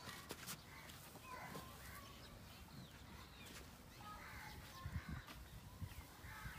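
Birds chirping and calling over a faint outdoor background, with a few dull thuds of a spade chopping into a pile of mud and straw about two-thirds of the way through.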